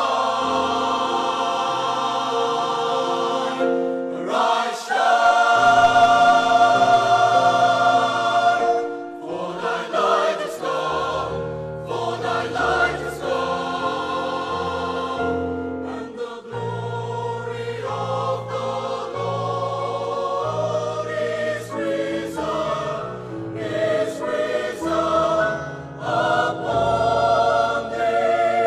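Choir singing Christian music, long held notes with vibrato over a steady bass line.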